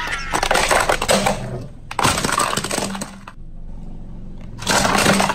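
Plastic toy tanker truck being crushed under a car tyre: the plastic cracks and snaps in a dense crackle, in three spells with a quieter lull before a last burst near the end.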